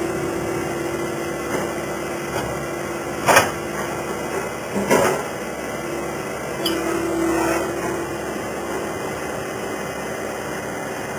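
Skid steer loader running, with a steady whine that swells and fades and two sharp metal clanks, one about three seconds in and another just before five seconds.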